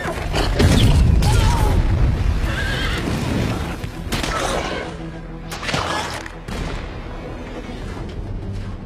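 Film battle soundtrack: horses whinnying and a heavy boom about half a second in, loudest around a second in, followed by further sudden crashing effects, all over orchestral music that carries the second half.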